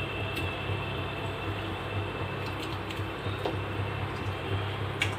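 Raw mutton pieces being dropped by hand into a wide pan of boiling water, with soft wet plops over a steady low hum and hiss. A sharp click near the end.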